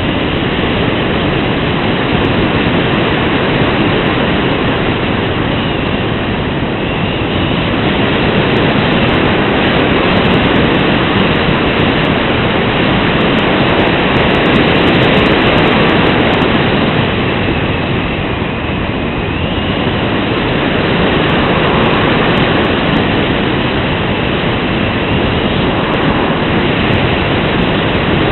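Steady, loud rushing noise of wind buffeting the microphone, swelling and easing slowly with a brief lull about two-thirds of the way through.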